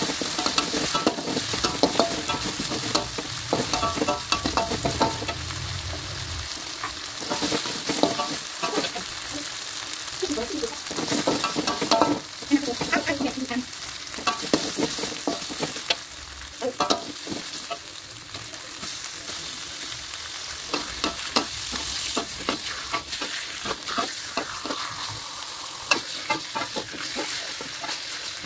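Green chili spice paste sizzling in hot oil in a metal wok, fried until fragrant, while a metal spatula scrapes and clinks against the pan as it is stirred.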